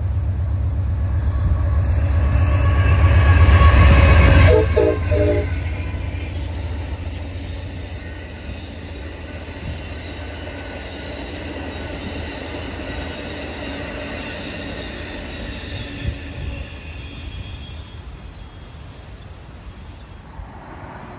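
Amtrak passenger train passing close by: the locomotive's deep diesel rumble peaks about four seconds in, then the bilevel passenger cars roll past with steady high ringing tones from the wheels and rails that slowly fade.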